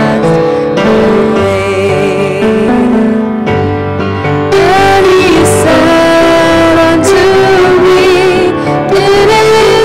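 Song leaders singing a hymn into microphones, a woman's voice leading, accompanied on grand piano.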